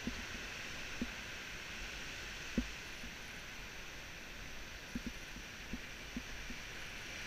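Steady outdoor hiss with a few soft, low knocks scattered through it, from climbing gear, rope and boots being handled on the rock face; the clearest knock comes about two and a half seconds in and a small cluster of them near the end.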